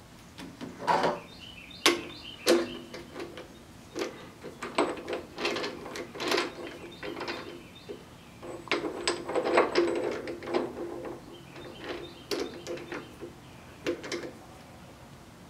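Chuck of a Grizzly G4000 metal lathe being worked with a chuck key, ratcheting and grinding as the key turns the scroll. Irregular metal clicks and knocks come as a short steel bar is set in the jaws and clamped, with a longer run of ratcheting about nine to ten seconds in.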